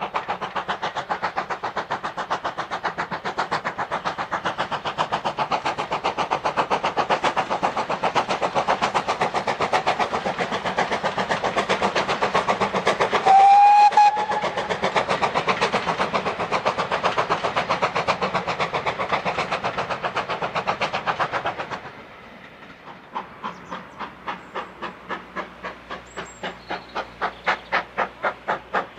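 GWR Large Prairie 2-6-2 tank locomotive 4144 working hard under steam, with fast, even exhaust beats and one short whistle blast about halfway through. After a sudden drop, slower exhaust beats come in faint and grow steadily louder as the engine approaches.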